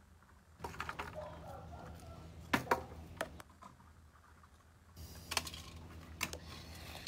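Scattered sharp clicks and taps with some rustling, the loudest pair about two and a half seconds in.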